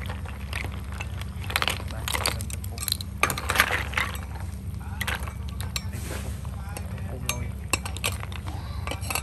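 Snail shells clinking and clattering against a metal pan as they are stirred with a ladle in boiling chili broth. The clinks come thick and irregular, busiest a second or two in, over a steady low rumble.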